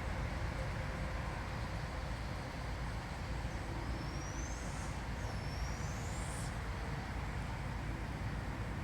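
Two high, thin whistles, each rising in pitch, about four and six seconds in. The second climbs more steeply and stops abruptly. They come from an unidentified night-time caller, over a steady low rumble of background noise.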